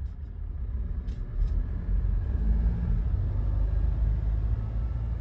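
Low, steady rumble of a car on the move.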